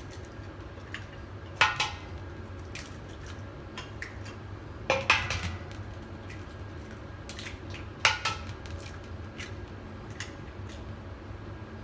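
Eggs being knocked against a stainless steel mixing bowl to crack them: three sharp knocks about three seconds apart, with lighter clinks in between.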